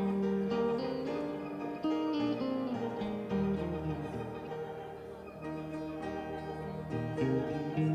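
Instrumental music carried by plucked strings, a guitar-like melody of changing notes over a low bass line, with no singing.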